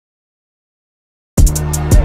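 Dead silence, then the backing music cuts back in about 1.4 seconds in: a deep kick drum with rapid hi-hat ticks over a steady bass.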